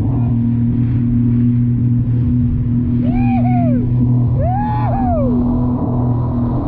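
Personal watercraft engine running steadily at a constant pitch while crossing choppy water. Two short rising-then-falling tones sound in the middle, about a second apart.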